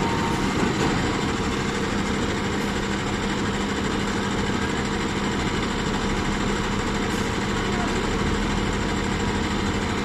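Diesel engine of a rotary piling rig running steadily, a constant even drone.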